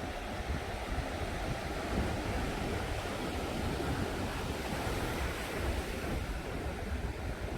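Surf washing onto the beach in a steady wash, with wind rumbling and buffeting against the microphone.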